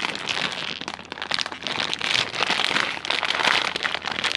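Plastic snack bag crinkling and rustling as it is handled and opened: a dense run of irregular crackles.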